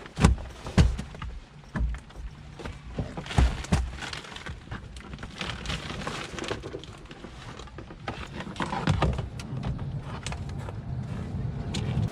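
Irregular knocks and clattering, as of objects being handled and set down, loudest in the first two seconds and lighter and busier afterwards.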